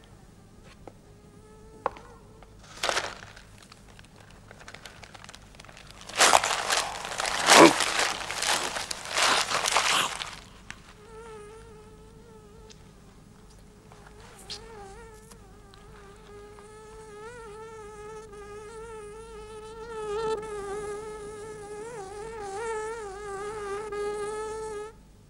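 An insect buzzing, with a wavering pitch; it runs for the second half and stops abruptly near the end. Earlier, about six seconds in, there is a loud burst of noise lasting a few seconds.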